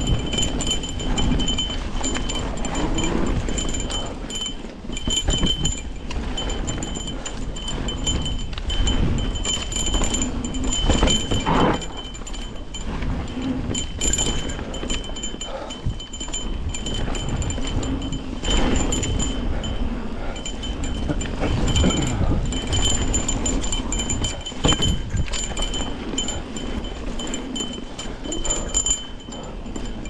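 Nukeproof Giga mountain bike riding down a rough dirt trail: tyres rumbling, steady clatter and rattle from the bike, and a high buzzing whine that comes and goes as the rear freehub ticks while coasting. Wind rumbles on the microphone.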